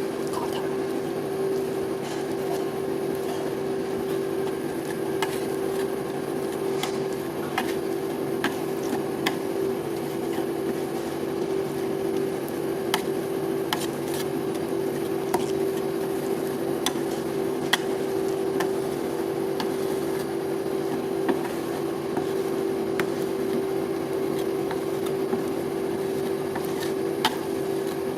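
Metal spatulas scraping and tapping on a rolled-ice-cream cold plate, with irregular sharp clicks every second or two over a steady hum.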